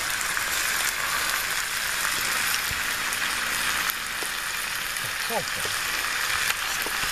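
Sliced potatoes and onions frying in a pan on campfire embers: a steady sizzling hiss.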